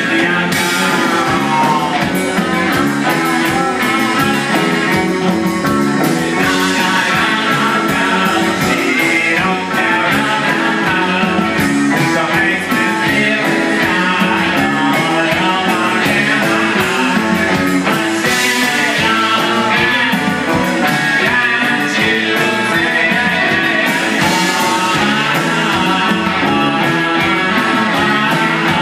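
Live rock band playing a song, with electric guitar and singing over a full band.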